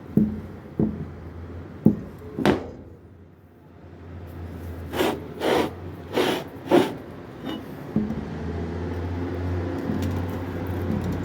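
A few sharp knocks, then four evenly spaced strokes about half a second apart; about eight seconds in, a motor starts and runs with a steady hum.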